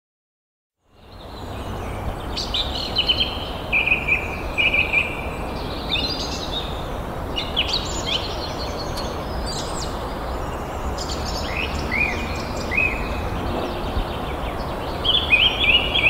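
Wild birds chirping and twittering in short repeated notes and quick downward slurs over a steady rushing background noise, coming in about a second in.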